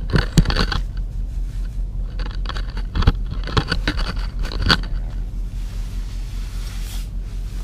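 Bursts of scraping and clicking from fishing gear being worked at an ice-fishing hole rimmed with slush and snow, in three clusters over a steady low rumble, easing off in the last few seconds.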